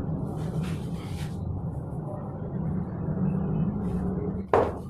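A steady low rumble, with one brief loud thump about four and a half seconds in.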